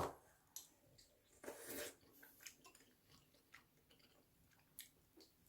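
Faint eating sounds: a person chewing, with scattered short clicks and brief rustles.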